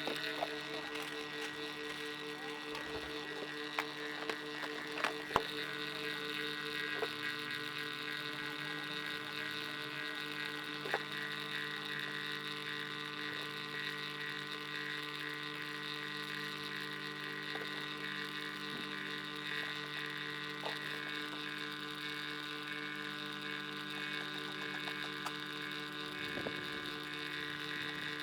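A steady electrical hum with several constant tones, and a few faint clicks over it in the first few seconds and near the end.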